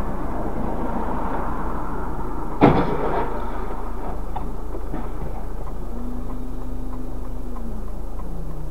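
Dashcam recording of a moving car's road and engine noise, a steady rumble with one sharp knock about two and a half seconds in. A faint low tone slowly falls in pitch near the end.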